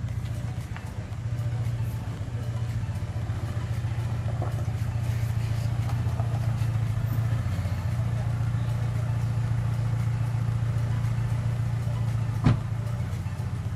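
Car engine running with a steady low hum as the sedan rolls in and idles. There is one sharp knock near the end.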